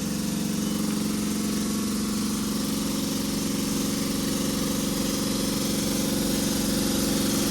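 Northern Class 323 electric multiple unit standing at the platform, its equipment giving a steady low hum, growing slightly louder.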